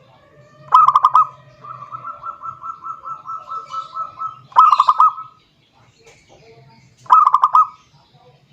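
Zebra dove (perkutut) cooing: three loud bursts of rapid staccato coos, with a quieter, evenly pulsed run of soft coos between the first two.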